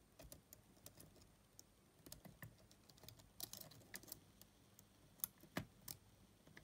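Faint, irregular ticks and short scrapes of a hobby knife blade scraping the spring-steel contact leaf of a Sony WM-EX900 Walkman's tape detection switch, cleaning the contact because the switch does not work; a couple of louder ticks come about five seconds in.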